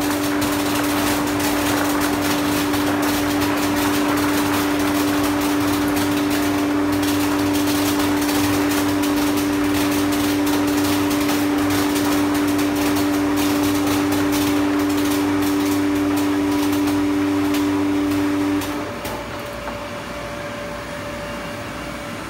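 Belt-type optical color sorter running while it sorts garlic cloves: a steady machine hum with a constant drone, over a dense run of fast clicks and taps from the air ejectors and the cloves dropping into the output bags. About 19 seconds in, the drone stops and the running noise becomes quieter.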